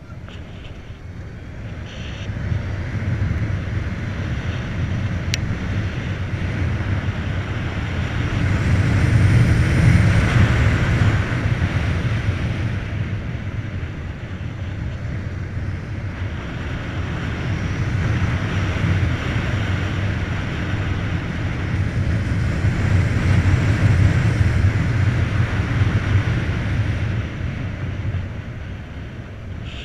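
Wind rushing over the microphone with road and tyre noise from a Volta BCN Sport electric motorcycle under way, with no engine note. The rush swells twice, and a single faint click comes about five seconds in.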